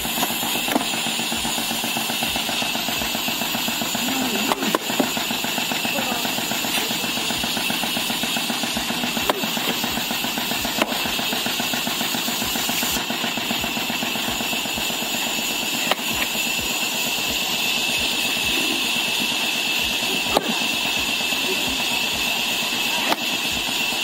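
Axe blows splitting logs, irregular knocks a few seconds apart, over a steady machine drone.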